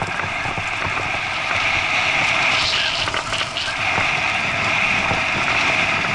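Bicycle rolling over a rutted dirt track: steady tyre noise and rattle, with wind rushing over the microphone.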